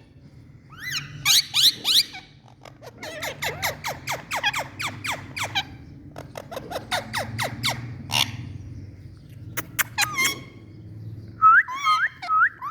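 Pet Indian parrot calling: quick runs of short squeaky chirps, several a second, broken by pauses, then a wavering, warbling call near the end.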